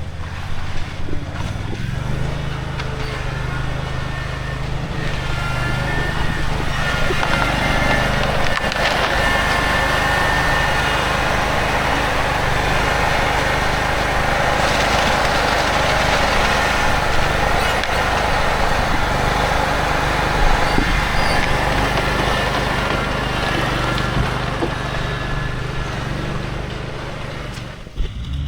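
An engine running steadily, a continuous machine drone that settles in about two seconds in and drops away just before the end.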